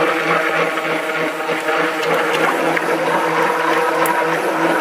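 Handheld stick blender motor running steadily while immersed in a bucket of cold process soap batter, blending in titanium dioxide.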